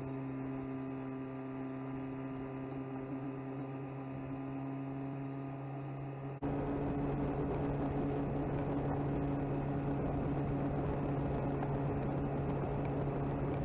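35 HP Mercury two-stroke outboard running at a steady high speed under load while towing, a constant hum. About six seconds in it turns suddenly louder, with more rushing noise from wake and wind over the hum.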